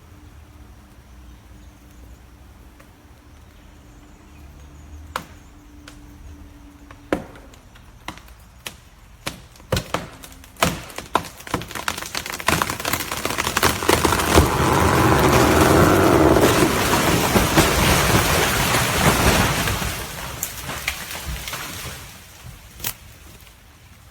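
A tree falling: wood cracks and splinters, sharp snaps coming faster and faster, then a long loud crash as the trunk and branches come down, lasting several seconds before it dies away with a few last snaps.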